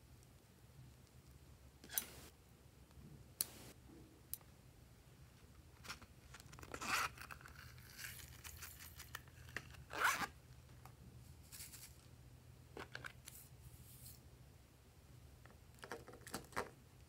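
Small plastic toppings containers being handled and opened: a few sharp plastic clicks, then rasping, tearing-like rustles as a plastic pouch of sprinkles is opened and its contents shaken out, with a few more clicks near the end.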